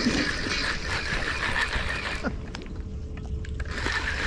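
Fishing reel being cranked, its gears whirring in two spells with a pause of about a second and a half between them, over a low steady rumble.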